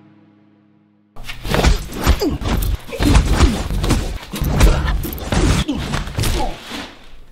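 Music fades out. About a second in, a sudden rapid flurry of heavy thumps and blows begins and goes on for about six seconds: punches landing and a body hitting the wall and floor in a fist fight.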